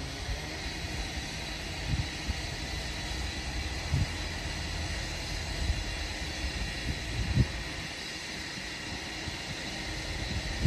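Class 730 Aventra electric multiple unit running slowly into the platform: a steady high whine from its electric traction equipment over a low rumble of wheels on rail, with a few knocks as the wheels pass over rail joints.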